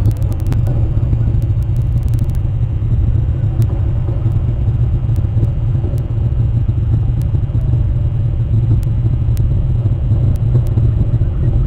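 Steady low rumble with no clear pitch, with faint sharp clicks scattered through it, most of them in the first couple of seconds.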